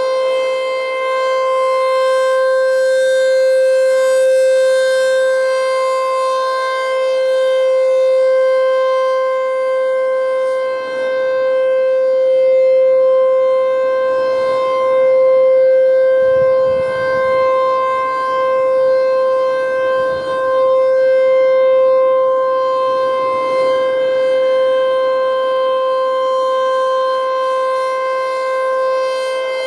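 Federal Signal Thunderbolt T-128 outdoor warning siren sounding its steady alert tone: one held pitch with no wail, swelling and fading in loudness every few seconds as the rotating head sweeps past.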